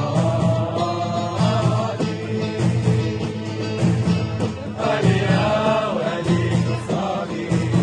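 Music with singing voices over a steady, repeating low beat.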